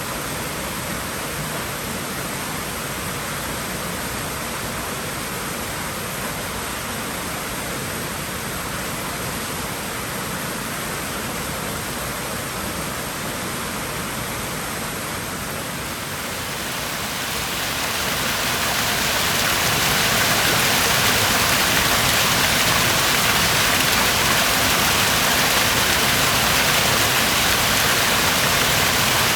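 Steady rushing of water in a swimming pool, an even hiss with no distinct splashes; it swells louder and brighter over a few seconds just past the middle and then holds steady.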